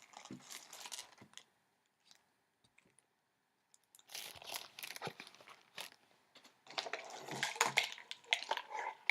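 Baking soda being scooped and levelled with a measuring spoon: scraping and rustling in three bouts, the last the longest, with small clicks between.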